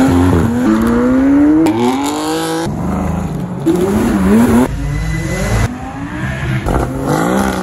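Supercar engines accelerating hard in a string of short cut-together clips: engine notes climb in pitch as the cars pull away, and about halfway through one engine is revved up and down. Each clip ends abruptly at a cut.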